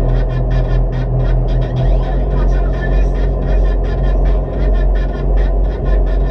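Speedboat's 1,000-horsepower engines running at speed: a loud, steady low drone with the rush of wind and water over it.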